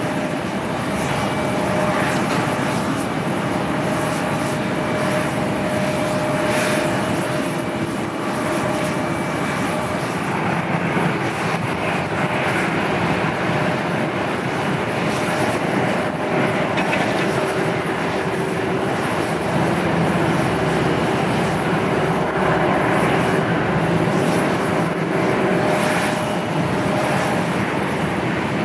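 Jet airliner engines running, a steady roar with faint held tones that shift in pitch about ten seconds in.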